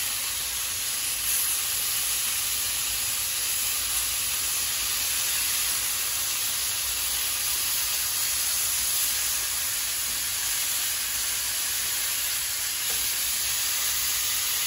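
Elk filet steaks in an olive-oil and soy-sauce marinade sizzling steadily in a hot frying pan.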